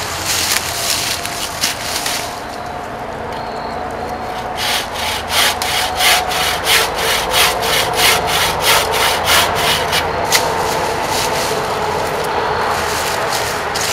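Wooden-framed bucksaw with a 24-inch dry-wood blade cutting through a dry hardwood branch: a quick, even run of a dozen or so back-and-forth strokes, about two to three a second, that starts about a third of the way in and stops about ten seconds in as the piece is cut off.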